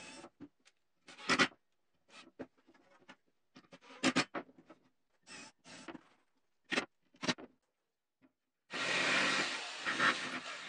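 A cordless drill boring into a pine board in several short separate bursts, then a jigsaw cutting through the board steadily over the last two seconds, the loudest part.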